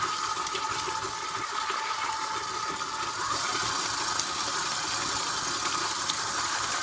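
Electric stand mixer running steadily, its motor giving an even whine as the flat beater mixes cake batter in a steel bowl.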